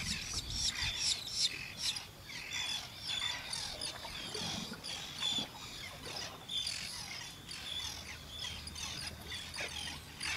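Small birds chirping and twittering in many short, quick high calls, with a faint low rumble underneath.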